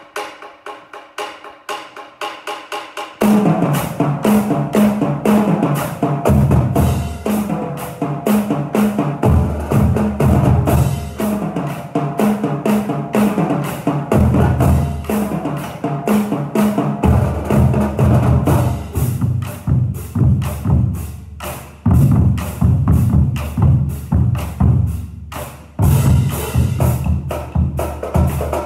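Drumline of snare drums, tenor drums and graded bass drums playing a cadence. It opens with a quieter run of sharp, rapid strokes without low drums; about three seconds in the full line comes in loud, the bass drums hitting in a dense rhythm under the snares and tenors.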